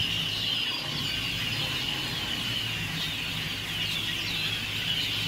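A huge flock of blackbirds chattering all at once: a dense, continuous mass of high, overlapping chirps and squeaks.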